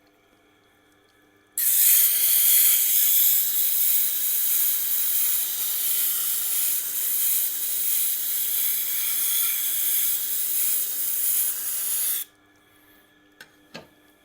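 Tormek sharpener's motor humming faintly, with a loud steady hiss that starts about a second and a half in and cuts off suddenly about ten seconds later.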